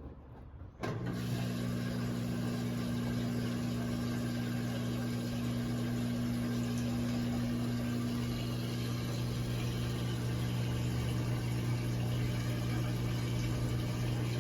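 Electrolux LE06DBD top-load washing machine switching on about a second in and running with a steady electric hum over a rush of water noise.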